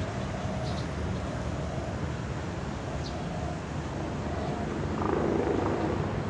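Steady low engine rumble mixed with outdoor harbourside noise. A louder rush comes in about five seconds in.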